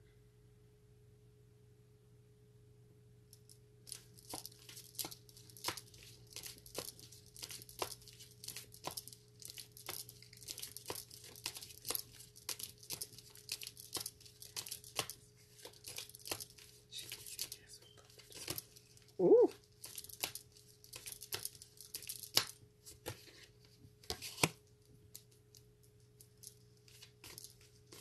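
A tarot deck being shuffled by hand: a steady run of quick, crisp card flicks and rustles that starts a few seconds in. A single short louder sound comes about two-thirds of the way through, over a faint steady hum.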